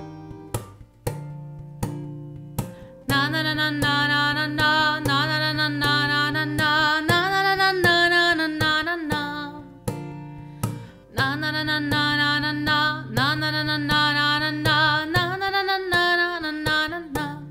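A woman singing a slow melody to her own acoustic guitar accompaniment. The guitar plays alone at first, the voice comes in about three seconds in, breaks off for a moment near the middle, and returns.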